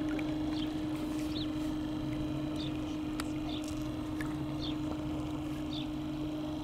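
Electric trolling motor running at a steady speed, driving a home-made egg-shaped propeller: a constant whine over a low hum. Short high calls repeat about once a second over it.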